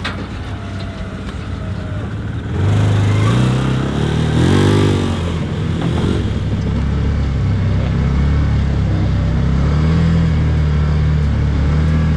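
Can-Am Commander side-by-side's V-twin engine idling, then revving up and pulling away about three seconds in, the pitch rising briefly before it settles into steady running under way.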